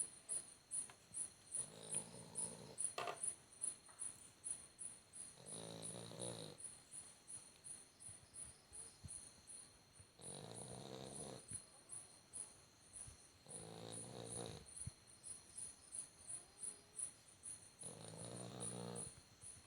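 A sleeping dog snoring: five slow, rattling snores about a second long, one every four seconds or so. A steady high-pitched ticking, about two or three a second, runs underneath.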